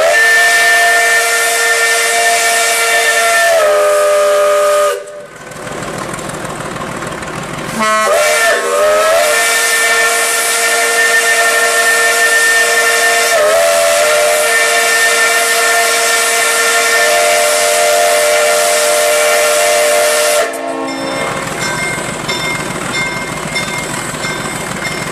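Steam locomotive chime whistle sounding a chord of several tones in two long blasts. The first lasts about five seconds and sags in pitch as it closes. After a few seconds of steam hissing, the second slides up as it opens and holds for about twelve seconds before cutting off sharply, leaving steam hissing.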